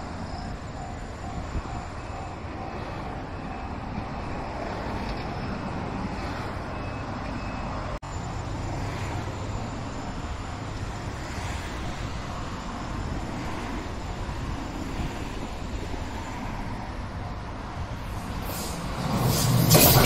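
JR West 227 series electric train approaching with a steady rumble, then passing close by with a sharp rise in noise about two seconds before the end. The level-crossing warning bell repeats for the first few seconds.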